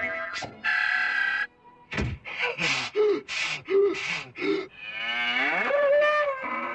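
Cartoon bull sound effects for Tom dressed as a bull. About a second in comes a short hissing burst, then a run of about five short huffs, then one long bellowing moo that glides down in pitch and levels off.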